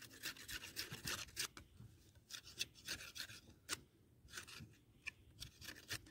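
A knife scraping along a dry wooden branch in quick, irregular strokes, whittling it into a spit. The branch is dry, so the bark does not strip off easily.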